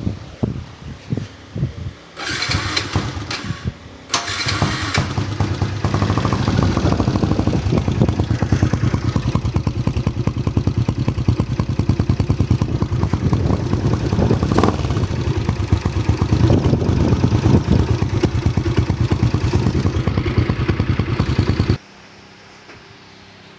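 Motorcycle engine fitted with a Mutakin aftermarket exhaust with its silencer insert in place, started about four seconds in after a couple of short bursts, running loudly through the exhaust and then switched off suddenly near the end.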